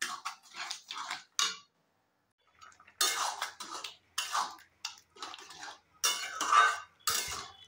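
A metal spatula scrapes and stirs thick tomato chutney around a metal kadai (Indian wok). There is a quick run of scrapes, a pause of about a second, then slower single strokes about once a second.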